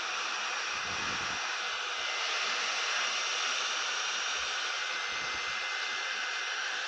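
Hot air rework station blowing steadily: an even rushing hiss with a faint steady whine, heating the phone so its screen adhesive softens.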